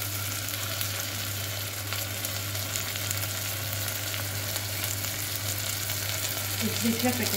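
Onions, tomatoes and spices frying in hot oil in a stainless-steel pressure cooker: a steady sizzle with fine crackles, over a low steady hum.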